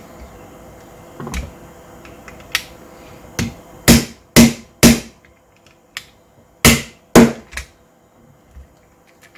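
Sharp mechanical clicks of a Hi-Capa gel blaster pistol's action being worked by hand, its hammer and slide snapping. A few light clicks come first, then two groups of three loud clicks about four and seven seconds in.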